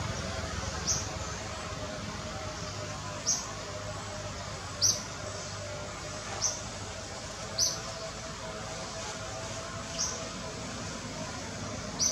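A bird calling with a short, high, falling chirp, repeated about seven times at uneven gaps of one to two and a half seconds, over a steady outdoor background hiss.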